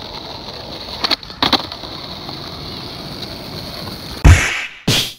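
Skateboard tail popping and the board landing on brick paving about half a second later, over steady wind noise. Two much louder heavy thumps follow near the end.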